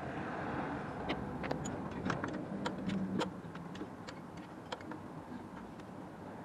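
Metal hand tools clicking and clinking against the engine as the alternator's 10mm mounting nuts are undone: a loose, irregular run of sharp clicks, thickest from about one to five seconds in. A steady low rumble runs underneath.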